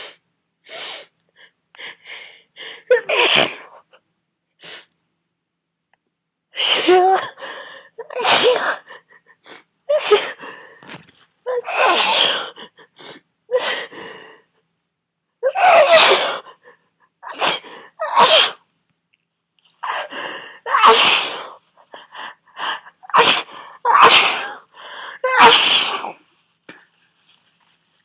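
A man with a heavy head cold in a sneezing fit: about a dozen loud sneezes in quick succession, with gasping in-breaths between them, the first about three seconds in and the rest from about six seconds on.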